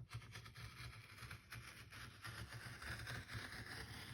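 X-Acto craft knife cutting through a padded binder cover: a faint, uneven scraping rasp with small clicks, fuller in the second half.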